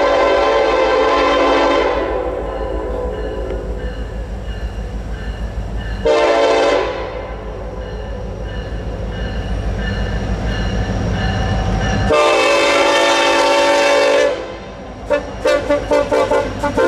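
Freight locomotive's multi-chime air horn blowing for a grade crossing: a long blast, a short blast, another long blast, then a quick run of short toots near the end. The low, steady rumble of the passing train runs underneath.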